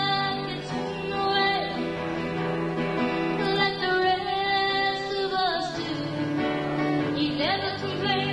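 A woman singing a song with instrumental accompaniment, holding long notes, with a rising slide into a new phrase near the end.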